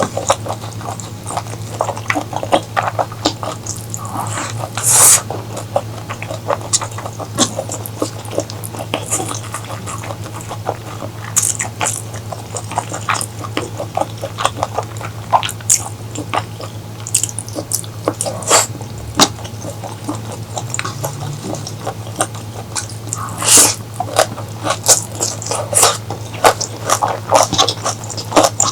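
Close-miked eating sounds: chewing with many irregular wet smacks and clicks of the mouth, a few louder ones, over a steady low hum.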